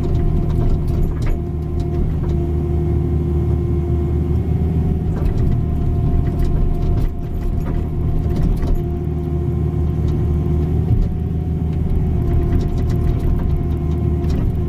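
Caterpillar 305 mini excavator's diesel engine running steadily as it starts digging a trench, with a steady whine that swells at times and a few short knocks.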